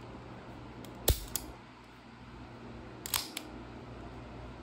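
Small metallic clicks from a Bersa Thunder 380 pistol's action being worked by hand with its magazine removed: a sharp click with a lighter one just after, about a second in, then another pair about three seconds in.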